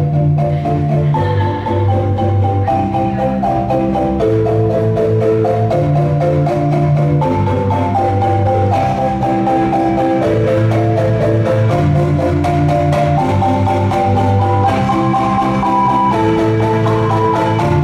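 Ensemble of wooden marimbas with resonator tubes playing a repeating, interlocking pattern, with low bass-marimba notes recurring every couple of seconds under the higher parts.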